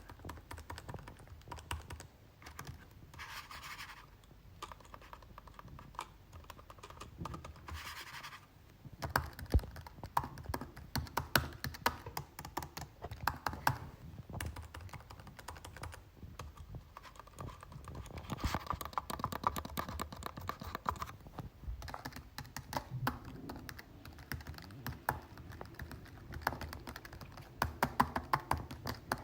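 Computer keyboard being typed on: rapid key clicks, sparse and quieter for the first several seconds, then faster, louder runs of keystrokes from about nine seconds in. A couple of brief scratchy rustles come early on.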